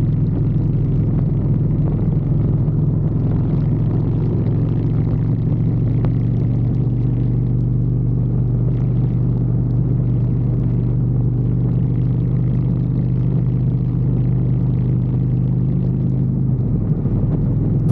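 Harley-Davidson motorcycle's V-twin engine running at a steady cruise, a constant low drone that holds the same pitch throughout.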